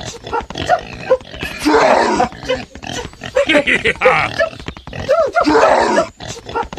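Animal grunting sound effect playing in a repeating loop. Each round brings short calls that rise and fall in pitch, then a rougher grunting stretch, and comes round about every two seconds.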